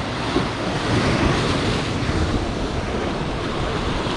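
Sea waves surging and washing over the rocks just below, a steady rushing with a low wind rumble on the microphone.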